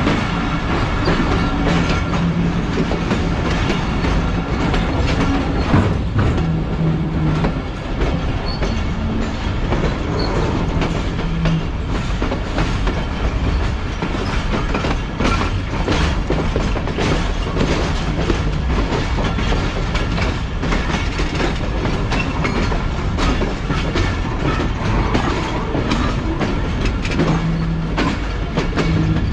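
Wheels of a Pakistan Railways passenger train clattering at slow speed over rail joints and junction points, heard from aboard. The clicks come irregularly over a steady rumble, with a low hum that comes and goes.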